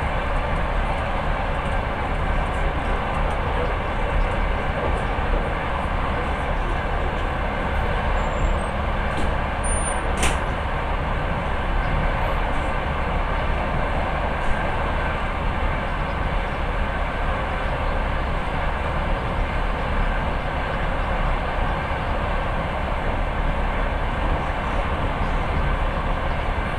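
Steady running noise of a moving passenger train, heard from inside the carriage at the window, with a single sharp click about ten seconds in.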